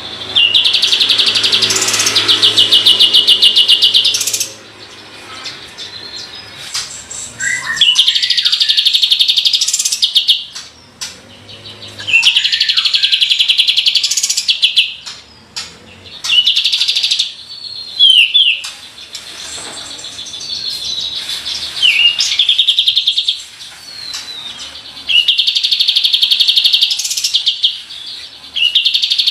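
Kapas tembak bulbul singing in repeated bouts of very fast, rattling high trills, each a few seconds long, with softer chirps and short whistled notes in the gaps. This rapid-fire trill is the 'roll tembakan' song kept for training other birds.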